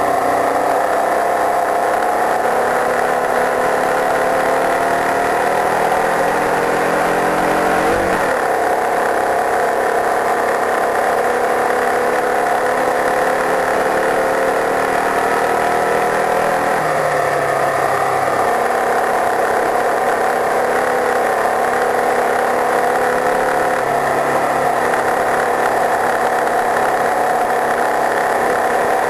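Open-wheel racing car's engine running hard on track, its note climbing steadily under acceleration, with gear changes about eight and seventeen seconds in.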